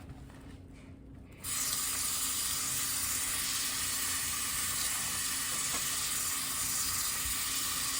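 Running tap water turned on about one and a half seconds in, flowing steadily as shampoo is rinsed out of a wig in the sink.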